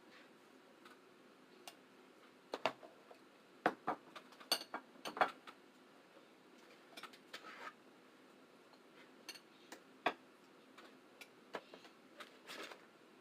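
Eating sounds from a seafood boil: irregular sharp clicks and cracks of food and utensils being handled and chewed, busiest between about two and a half and five and a half seconds in.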